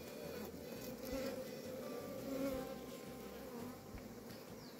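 Caged queen honey bees piping, the queen bee's 'song', faint thin tones over a steady buzz of worker bees packed in shipping cages.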